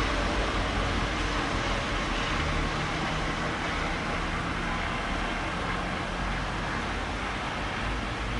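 Thunder rumbling low and slowly dying away over a steady hiss of rain.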